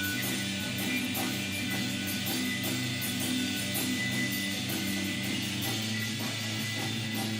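Rock band playing live: electric guitar and bass holding sustained notes over a drum kit keeping a steady beat.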